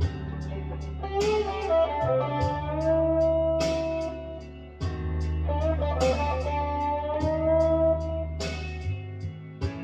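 Gibson Les Paul Traditional electric guitar playing a lead line: picked notes bent upward and left to sustain, with a sharp pick attack every couple of seconds, over low held notes.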